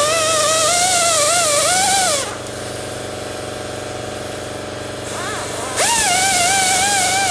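High-pitched whine of a power tool cutting lugs out of a rubber lawnmower tire, its pitch wavering up and down as the cut loads it. It stops for about three seconds, winds back up and resumes cutting.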